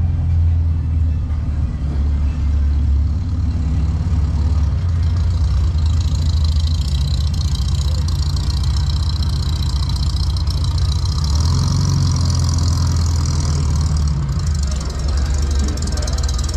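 A motor vehicle engine running steadily with a deep, low rumble; a higher hiss joins about six seconds in.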